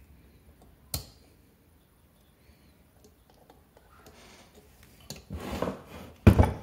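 Hands handling parts of a Peugeot Vivacity scooter engine on a wooden workbench: a sharp click about a second in, handling noise late on, and a loud knock near the end.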